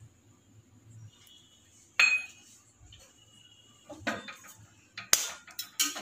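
An egg knocked against a stainless steel bowl: a sharp metallic clink with a brief ring about two seconds in, then several crisp crackling clicks as the shell is cracked and pulled apart.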